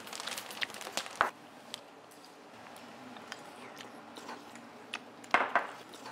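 Metal spoons clinking and tapping against ceramic bowls as several people eat: scattered light clicks, a few in quick succession near the start, then a louder little cluster of clatter a little after five seconds in.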